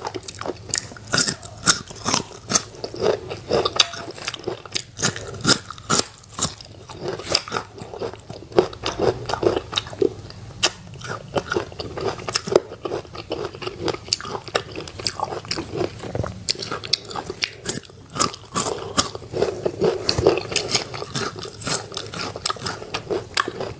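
Close-miked biting and chewing of crisp fresh fruit pieces dressed in chili and fish sauce: a run of sharp crunches, several a second, all the way through.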